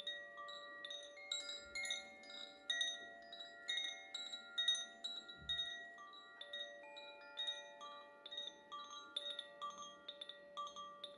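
Koshi chime swinging: the clapper inside the wooden tube strikes its tuned metal rods at an irregular pace, each strike leaving a clear ringing tone that overlaps the others and hangs on. Two soft low thuds come through, about two and five seconds in.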